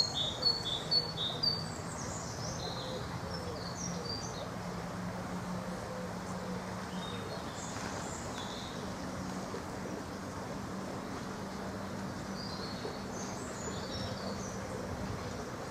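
Small songbirds chirping and trilling in short high phrases, busiest in the first couple of seconds and again near the end, over a steady low hum of background noise.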